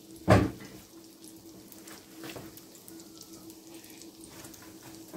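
Pirozhki frying in hot oil in a frying pan: a steady sizzle scattered with small crackles and pops. A loud knock comes about a third of a second in, and a softer one a couple of seconds later.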